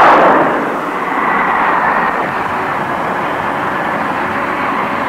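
Jet engine roar from a carrier jet, loudest at the start and easing within the first second into a steady roar with a faint high whine.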